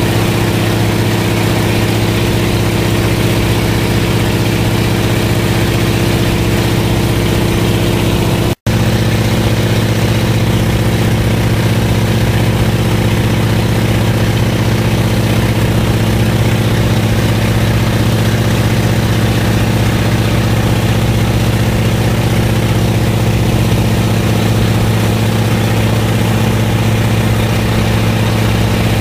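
Floatplane's piston engine and propeller running steadily in flight, a constant drone heard inside the cabin. The sound cuts out for an instant about eight and a half seconds in.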